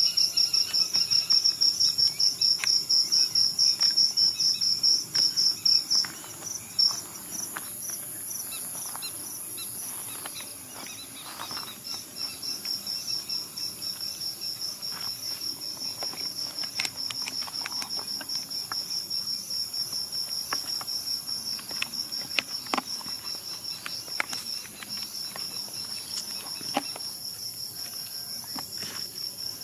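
Crickets chirping at night in a steady, fast-pulsing high trill, louder for the first six seconds and then softer, with a higher insect hiss above it. A few faint clicks and ticks are scattered through.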